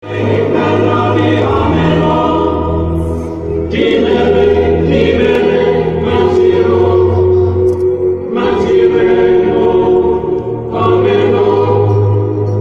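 Choral music: a choir singing over sustained low notes, in phrases that change every few seconds.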